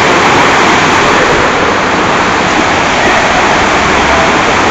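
Floodwater rushing through a swollen stream: a steady, loud rush of churning rapids.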